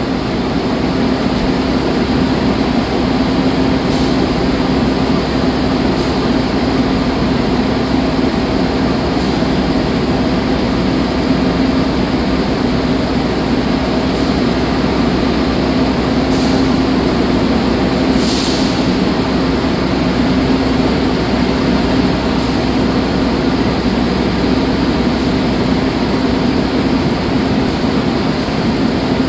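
Passenger train pulling slowly out along the platform: a steady rumble with a constant low hum, and a few faint, brief high clicks.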